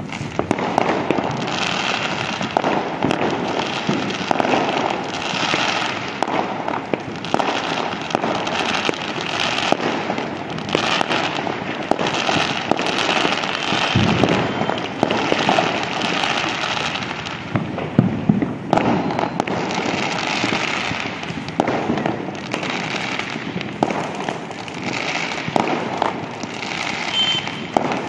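Fireworks and firecrackers going off across a city: a dense, unbroken run of bangs, pops and crackles with no pause.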